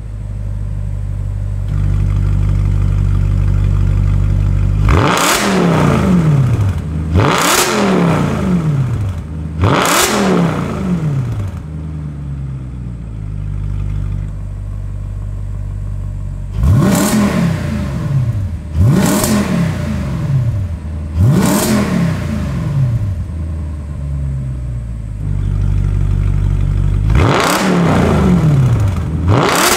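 Audi RS4 B8's 4.2-litre V8 through an Armytrix cat-back exhaust, loud and stationary, idling and blipped in sharp free revs. There are three quick revs, a spell at idle, three more, then two more near the end, each climbing fast and dropping straight back to idle.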